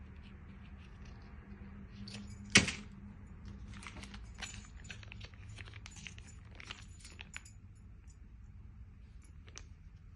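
Foil sauce sachet crinkling and crackling as it is handled, squeezed and shaken, in a run of short crisp ticks. There is one sharp snap about two and a half seconds in, over a faint low hum.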